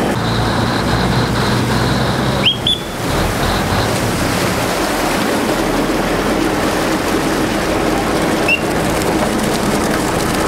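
A Chao Phraya river boat's diesel engine running loudly, with water churning along the hull, as the boat comes alongside a pier. A high whistle sounds over it: one held note for the first two seconds or so, a short rising blast around two and a half seconds in, and another short blast about eight seconds in. These whistles are the crew's docking signals to the helmsman.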